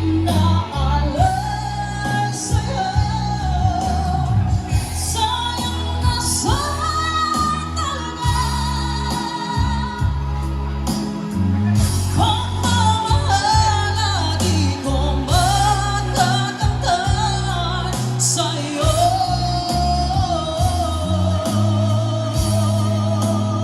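Pop ballad singing over a backing track with a steady bass beat, played live through Crown RCX15 loudspeakers run flat, without EQ.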